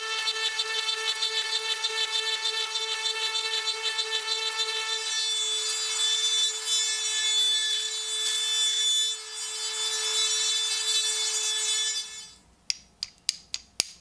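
Handheld rotary tool running with a steady high whine as its small burr grinds a recess into an antler knife-handle scale, with a rasping grind over the whine. The motor stops about twelve seconds in, followed by about five sharp clicks.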